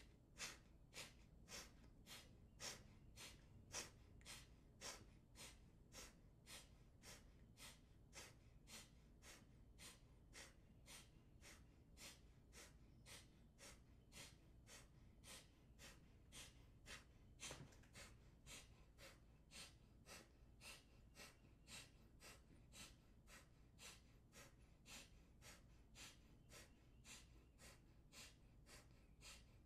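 Alternate-nostril Kapalabhati breathing: short, forceful nasal exhalations puffed out one nostril at a time, faint and evenly paced at about two a second.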